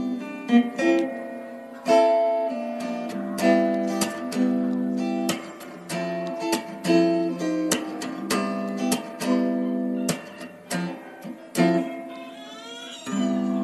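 Background music: acoustic guitar playing a run of plucked notes and chords, each note ringing on.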